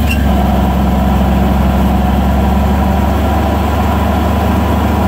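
Cummins NHC250 inline-six diesel idling; right at the start the switch is hit and the air-operated fan clutch engages, and the engine-driven cooling fan comes on with a steady rushing of air over the engine's low hum.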